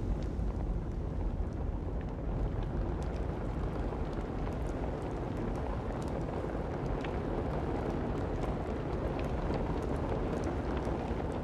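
Large fire burning: a steady low rushing noise with scattered small crackles.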